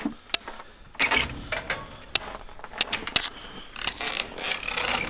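Footsteps crunching in snow, with many short sharp clicks and creaks.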